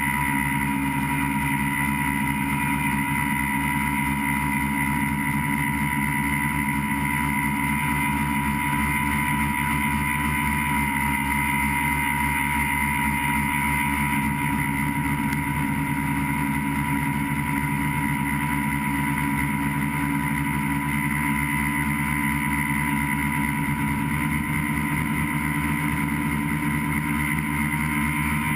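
A tricopter's three electric motors and propellers running in steady flight, heard from the camera mounted on the aircraft. It is a constant motor whine with a low buzz beneath it, and the pitch barely changes.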